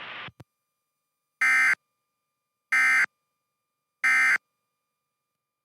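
Three short bursts of SAME digital data tones, each about a third of a second and about 1.3 s apart: the end-of-message (EOM) code that closes an Emergency Alert System relay of a NOAA Weather Radio weekly test. Just before them, the radio's background hiss cuts off with a click.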